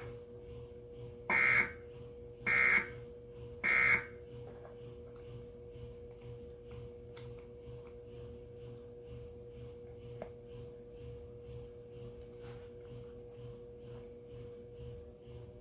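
Emergency Alert System end-of-message data bursts: three short, shrill digital warbles about a second apart, marking the close of the alert. After them comes a faint steady hum with a soft, regular pulsing.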